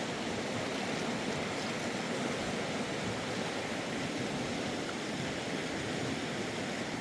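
Steady rush of a flowing stream, an even watery noise with no breaks.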